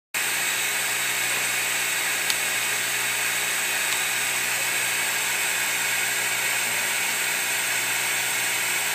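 Portable hot bonder's vacuum pump running steadily, a high hiss over a low hum, with a single faint click about two seconds in.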